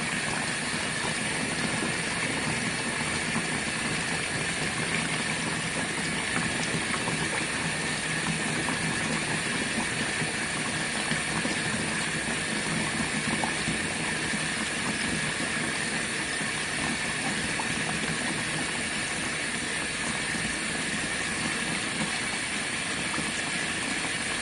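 Cold tap water running from a hose into a portable RV washing machine's tub, a steady hiss and splash as the tub fills to medium level for the rinse.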